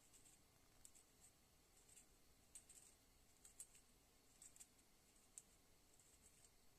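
Faint, irregular light clicks from a small two-stage 1:25 cycloidal gear reducer being turned by hand.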